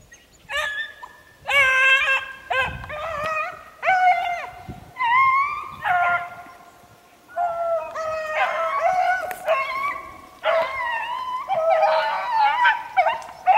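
A pack of young beagles baying on a rabbit's trail: several hounds' voices overlap in repeated drawn-out bawls, starting about half a second in and going on with only short breaks.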